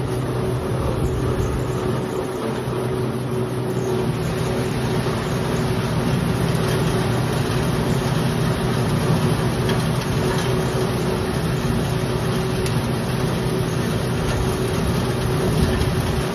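Pepper threshing machine running steadily with a constant motor hum as pepper branches are fed in and stripped of their berries; the sound gets busier from about four seconds in.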